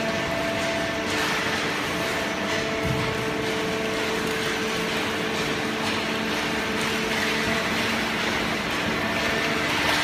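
Horizontal hydraulic waste-paper baler and its feed conveyor running: a steady machine hum with a few held tones over an even rush of industrial noise.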